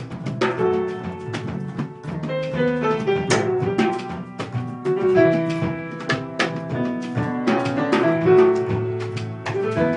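Instrumental jazz with piano and drum kit. Runs of piano notes move up and down over a low line, with frequent drum and cymbal strokes throughout.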